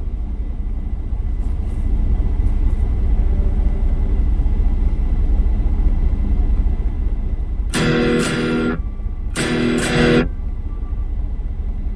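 Electric guitar (a Stratocaster) through a Blackstar ID:Core V3 amp: a steady low rumble for most of the time, then two chords strummed about a second and a half apart, each ringing for about a second before being cut short.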